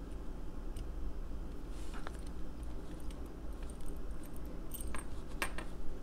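Small metal clicks and clinks as a metal tool is handled and fitted against a padlock's lock cylinder. The clicks are scattered and get more frequent near the end, over a steady low hum.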